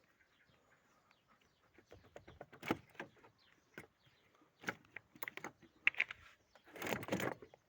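Hand tools clicking and knocking on the car battery's 10 mm bolts as the battery is undone: runs of small rapid clicks, a sharper knock about two and a half seconds in, and a louder clatter near the end.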